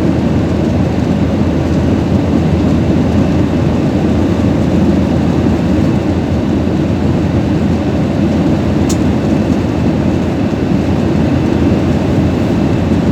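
Steady airliner engine and airflow noise heard from inside the passenger cabin, a deep even rumble, with one brief click about nine seconds in.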